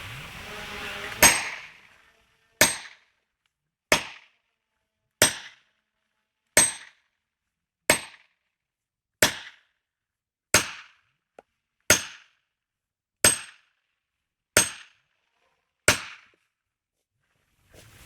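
Twelve sharp, identical-sounding strikes at an even pace of about one every 1.3 seconds, each ringing briefly, with dead silence in between.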